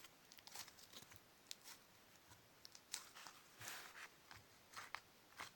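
Faint scattered sticky clicks and small pops of soft, non-crunchy slime being stretched and pulled apart in the hands, a few louder ones from about three seconds in.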